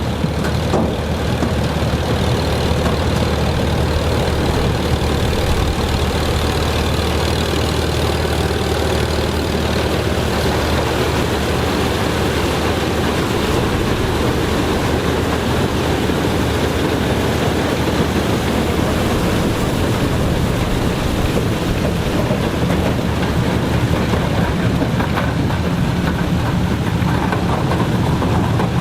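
Heavy farm machinery engine running steadily with a low, even hum. A second, somewhat higher hum joins about twenty seconds in.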